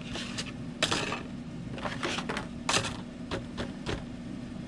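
Small hard objects clicking and clattering irregularly as someone rummages through them, the loudest knocks about a second in and near three seconds, over the steady low hum of an air conditioner.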